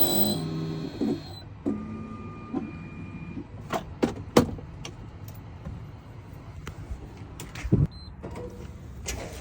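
Key-cutting machine's motor whining and winding down within the first second, followed by scattered sharp clicks and light knocks of keys and tools being handled.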